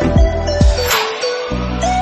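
Background music: a melody over bass notes with a steady drum beat.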